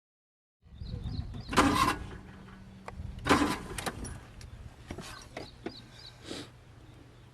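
An old Suzuki Mehran's starter cranking in a few short bursts, with the engine failing to catch, over a steady low hum.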